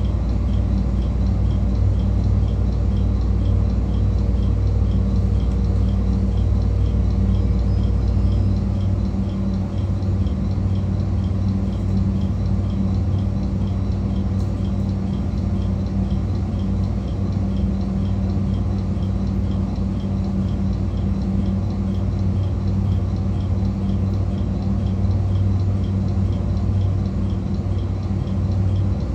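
JR Kyushu 821 series electric train standing with its onboard equipment humming steadily, a deeper rumble under it that stops about eight seconds in. A faint regular ticking runs through it.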